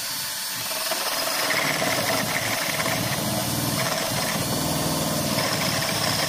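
Cordless drill driving a Pro-Fit single-tip tungsten-carbide hole saw through a chipboard plank, a steady motor whine mixed with the noise of the cutter chewing through the board.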